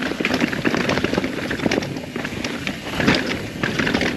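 Mountain bike descending a dry, loose dirt trail: tyres crunching over dirt and rocks, with a dense, irregular clatter of knocks and rattles from the bike.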